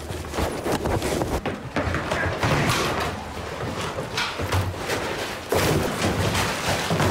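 A scuffle: repeated thuds, bumps and scraping as people grapple and a large, stiff cone-shaped costume is knocked over onto the floor. The loudest bout of thumping comes about five and a half seconds in.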